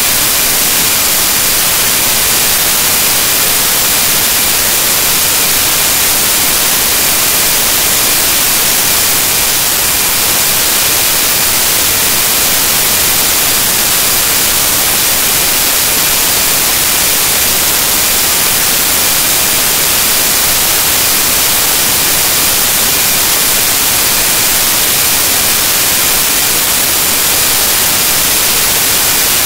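Loud, steady static hiss like white noise, strongest in the high end and unchanging. It is the sound of corrupted, garbled data in the recording.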